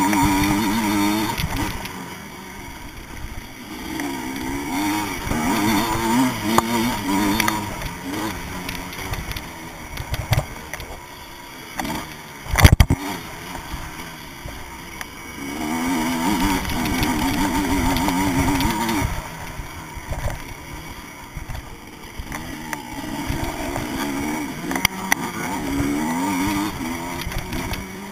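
Vintage motocross bike's engine, heard from on board, revving up and dropping off again and again as it is ridden hard round a dirt track. There is one sharp, loud thump about twelve seconds in.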